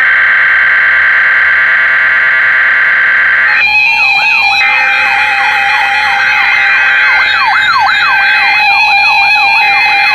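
Emergency alert signal tones: a loud, steady, buzzy data-header screech. About three and a half seconds in, it turns into a jumble of overlapping siren-like tones sweeping up and down over a steady tone, with the buzzy screech returning briefly twice.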